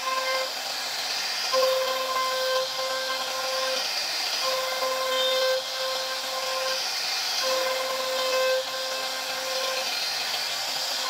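CNC router spindle milling a solid wood door panel with a profile cutter: a hiss of cutting under a steady high whine that drops out and returns every second or two as the cutter moves through the carving.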